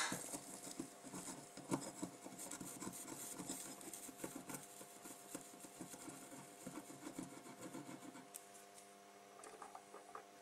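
Cotton swab scrubbing the pads of a circuit board: faint, irregular scratchy rubbing that eases off near the end. A low steady hum runs underneath.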